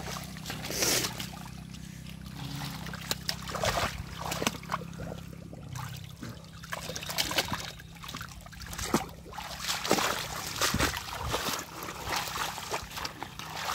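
Shallow muddy water splashing and trickling as a large catfish is gripped by hand and lifted out of the water, water streaming off it, followed by hands rummaging among water hyacinth. The splashes come irregularly, scattered throughout.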